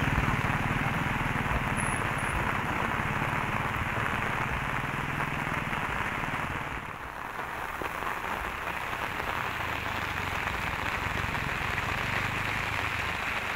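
Steady rain falling and pattering on surfaces, dipping briefly about halfway through.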